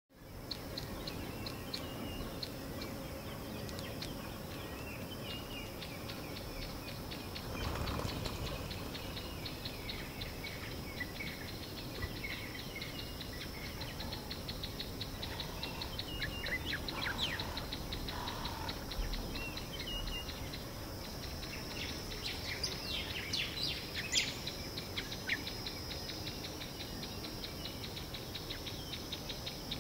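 Bush ambience: insects trill steadily in a fast, even ticking, with scattered high chirps coming and going, most of them in the second half. There is one brief low rumble a little over a quarter of the way in.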